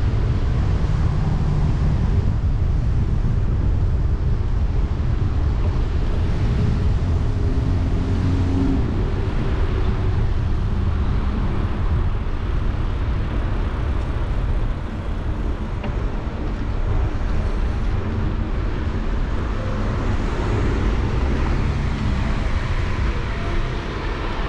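Road traffic noise of passing cars, under a steady low rumble of wind on a bicycle-mounted microphone while riding.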